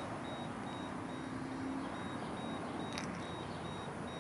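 A faint, high electronic beep repeating about twice a second over steady background noise, with one short click about three seconds in.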